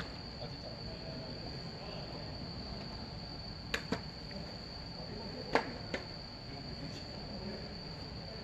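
Crickets chirping steadily in a continuous high-pitched trill, with a few sharp smacks from the field about four and five and a half seconds in, the second the loudest.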